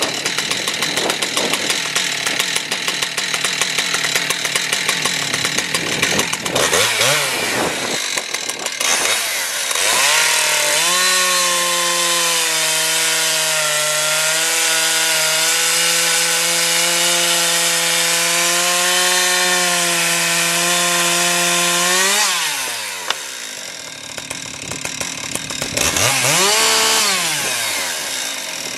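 Husqvarna 372XP X-Torq two-stroke chainsaw idling, revved briefly twice, then held at high revs while cutting into wood for about twelve seconds, its pitch steady under load. The throttle is then released and the saw drops back to idle, with one more quick rev near the end.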